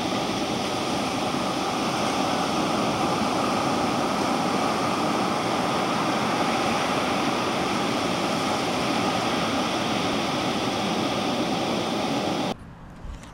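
Ocean surf washing and breaking on a sandy beach, a steady rushing hiss that cuts off suddenly near the end.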